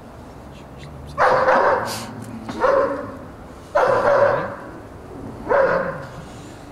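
A dog barking four times, about a second or more apart.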